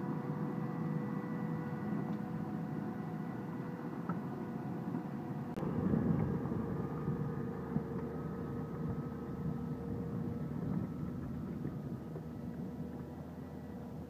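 Tractor engines working under load in a field: first a tractor driving a power harrow and seed drill, its engine running steadily with a steady whine over it. About five and a half seconds in the sound changes abruptly to a tractor pulling a reversible plough close by, its engine louder at first and then easing off.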